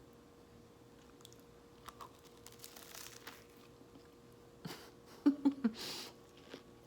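Biting into and chewing a toasted English muffin breakfast sandwich: a faint crunch and rustle, then a cluster of short, louder mouth sounds about five seconds in.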